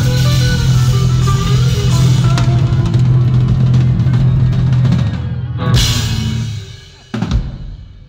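Live band with drum kit and guitars playing loudly, then ending the song: a cymbal crash about three-quarters of the way in, the music dropping away, and one last drum hit a little after that rings out and fades.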